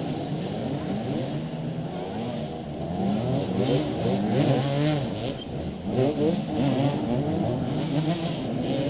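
Several motoball motorcycles revving and running at once, their engine pitches rising and falling over one another.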